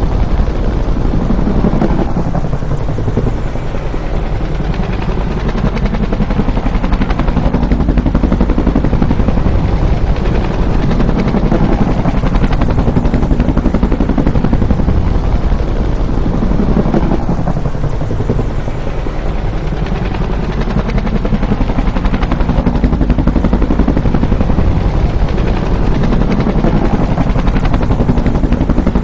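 Huey (UH-1) helicopter running loud and steady, its rotor and engine noise swelling and shifting in pitch as it passes, twice about fifteen seconds apart.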